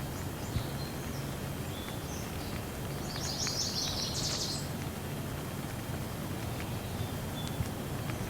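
Steady hiss of light rain with a low, even rumble underneath and a few faint drip ticks. A bird chirps a quick run of high notes about halfway through, after a few softer chirps earlier.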